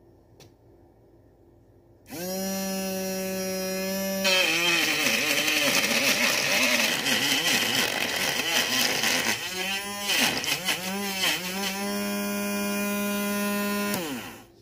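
Small 3 V DC motor spinning a razor-blade cutter inside a plastic jar. It starts about two seconds in with a steady hum, then turns loud and noisy, its pitch sagging and wobbling as a chilli is pushed down onto the blade and chopped. Near the end it runs free and steady again, then winds down as it is switched off.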